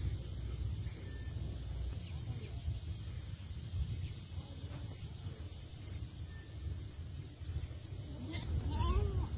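Wind rumbling on the microphone, with faint short high chirps every second or two; near the end a single bleat, typical of a goat, rising and falling in pitch.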